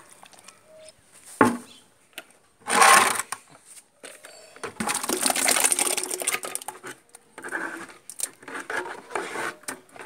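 Hands squelching and slopping through a wet slurry of fresh cow dung and cow urine in a plastic bucket. The mixing comes in uneven wet bursts: a loud slop about three seconds in, a longer run of sloshing in the middle, and shorter squelches near the end.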